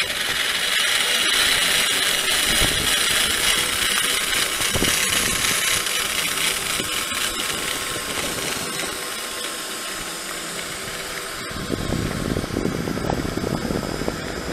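Zipline trolley pulleys rolling along a steel cable with a steady whirring hiss. About three quarters of the way through, the whir drops away and a lower rumble takes over as the trolley nears the landing platform.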